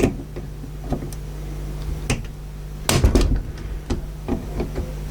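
Pliers clicking and scraping against the metal spring and parts of a VCR's cassette loading mechanism, scattered small clicks with a louder cluster about three seconds in, over a steady low hum.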